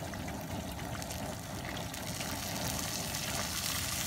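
Pot of hot peanut oil bubbling and sizzling around a deep-frying turkey: a steady seething hiss that grows a little louder and brighter near the end.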